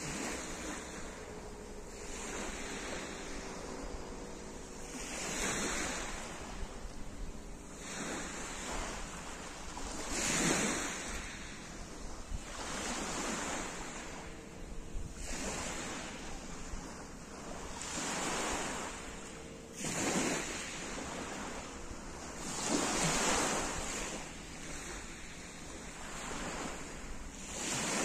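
Small waves breaking and washing over a pebble beach, one swell every two to three seconds, with wind rumbling on the microphone.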